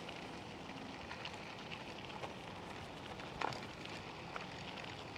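Scooter tyres rolling over a dirt and gravel road: a steady crackling hiss with scattered small clicks, and one brief louder knock about three and a half seconds in.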